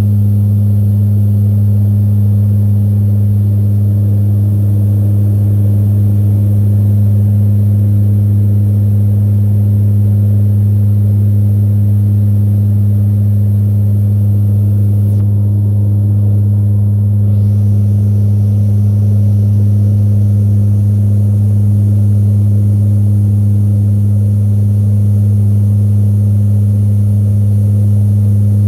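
Steady drone of a C-130 Hercules's turboprop engines and propellers in cruise, heard from inside the cabin: a loud, deep, unchanging hum with a second tone above it.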